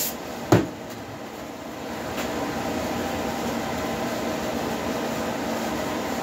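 A single sharp knock about half a second in, as an aerosol can of glass cleaner is set down on a workbench, then a steady hum in the workshop.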